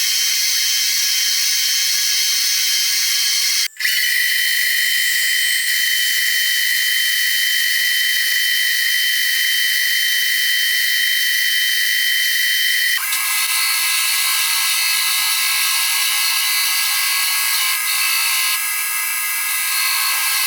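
Metalworking machine tool running steadily while cutting, with a high-pitched whine; the sound breaks off abruptly about four seconds in and changes character about thirteen seconds in, where one machining clip gives way to another.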